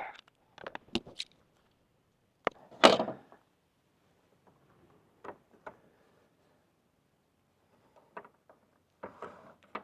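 Close handling noises of sunglasses being repaired with multi-purpose tape: scattered light clicks and rustles. The loudest is a short burst about three seconds in.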